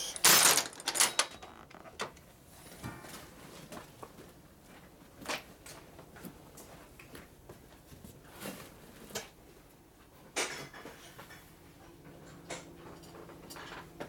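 Tools and metal parts being handled: a quick clatter of knocks and clinks in the first second, then scattered single clicks and knocks.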